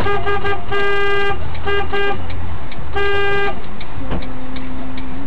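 Car horn honking: three quick short toots, a longer blast, two more short toots, then a second longer blast about three seconds in.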